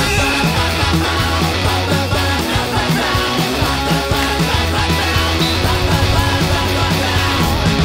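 Background rock music with a steady beat: the band track laid over the video as its soundtrack.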